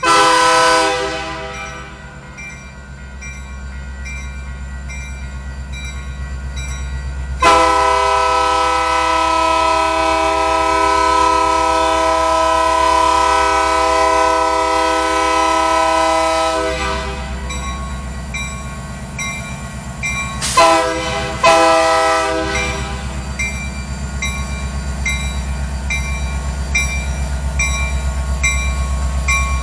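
Lake State Railway locomotive 6436's multi-tone air horn gives a short blast, then a long blast of about nine seconds, then two short blasts in quick succession, over the low rumble of its diesel engine growing as the train approaches. Between the blasts its bell rings, just under once a second.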